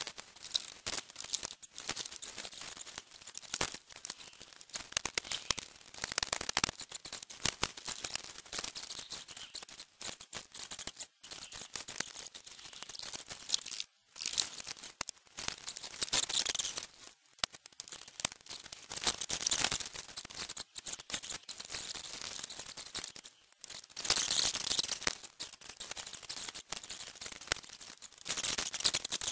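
Clicking, rattling and rustling of an Acer Aspire One netbook's plastic casing and screen parts being handled and taken apart by hand during a screen replacement. The sound comes in bursts with brief gaps.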